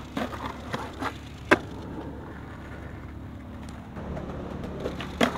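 Skateboard clacking and scraping against a concrete ledge during a trick: a few sharp clacks in the first second and a half, the loudest about a second and a half in, and another near the end. A steady low hum runs underneath.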